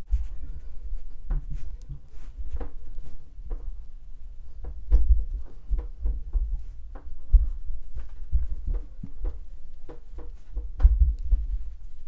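Makeup brush working bronzer over the face close to the microphone: irregular soft thumps and short taps, several a second, with louder knocks about five, seven and eleven seconds in.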